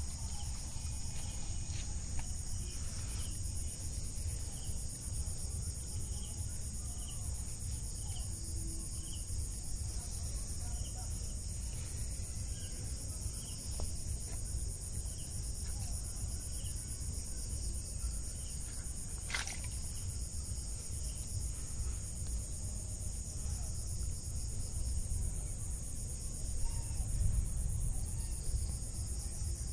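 Steady high-pitched chorus of crickets and other night insects, with a fainter chirp repeating a little faster than once a second and a low rumble beneath. A single sharp click sounds about two-thirds of the way through.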